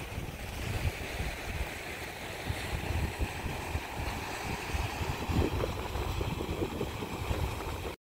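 Wind gusting on the microphone, with the steady wash of waves breaking on a rocky beach.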